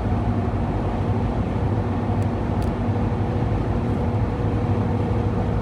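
Steady vehicle engine and road noise, an even low hum that runs without a break.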